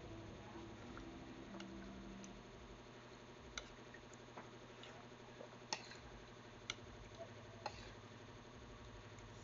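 Faint, sharp clicks and taps, a handful in all, several about a second apart, over a low steady hum.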